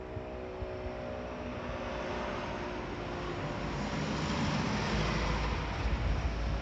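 A vehicle passing: a rush of noise swells and fades, with a low rumble near the end. A steady sound of several tones dies away during the first second.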